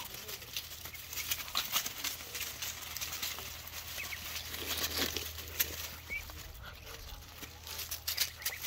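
Muscovy ducklings feeding on watermelon rinds among dry leaves: many quick clicks and rustles of bills pecking, with a few brief high chirps.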